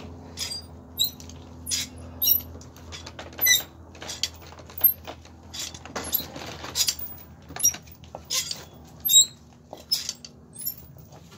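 Hand trimming of an overgrown draft horse hoof: short scraping and cutting strokes on the horn, irregular at about two a second, many with a brief squeak, over a low steady hum.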